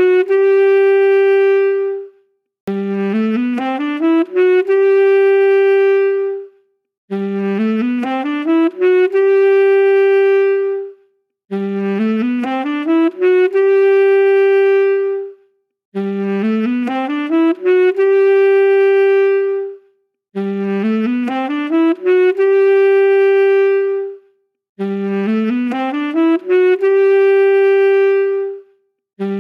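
Saxophone playing the same short phrase over and over: a quick run of rising notes climbing about an octave, then one long held note and a brief break. The phrase repeats about every four and a half seconds, alike each time.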